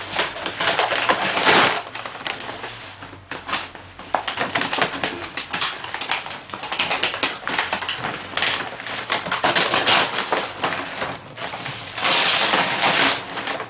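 Taped shipping packaging being torn open by hand: crackling, rustling and ripping in a run of short bursts, with a longer stretch of ripping near the end.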